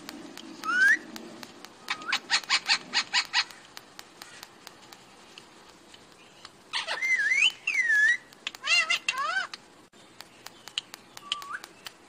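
Pet parrot whistling and calling: a rising whistle, then a quick run of about eight sharp chirps, then a cluster of looping whistles and harsher calls around the middle, and a faint short call near the end.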